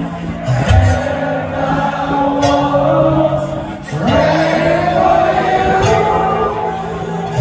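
A heavy metal band playing live, heard from within the audience: long held, heavy notes with singing over them. The sound drops briefly a little before four seconds in, then comes back with a rising slide.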